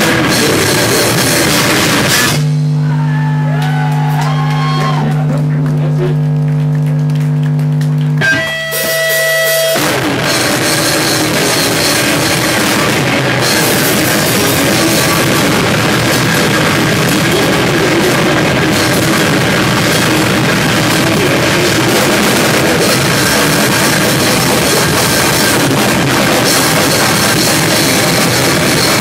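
Live rock band playing loud in a small room: distorted electric guitar and a drum kit with crashing cymbals. About two seconds in the drums drop out and a single chord is held ringing for about six seconds, then shifts to another held note. The full band crashes back in about ten seconds in.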